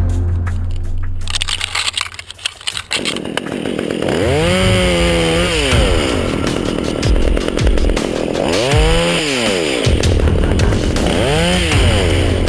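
A Stihl chainsaw starts about three seconds in and is run up and let back down three times, its pitch rising and falling with each rev.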